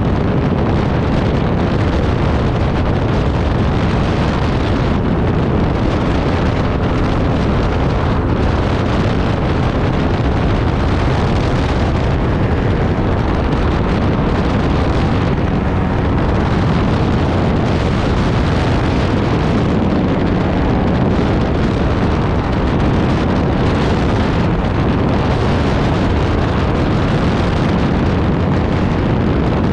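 Aerolite 103 ultralight aircraft in flight: its engine running steadily at cruise, under a loud, even rush of wind over the microphone in the open cockpit.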